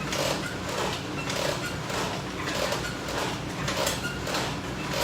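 A man breathing hard and fast in an even rhythm, about one breath every half second or so, while doing side crunches against resistance straps.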